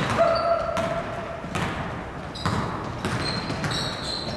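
A basketball bouncing on the gym's wooden floor as a player dribbles, the knocks coming irregularly and echoing in the large hall. Short high squeaks from basketball shoes on the floor come through several times.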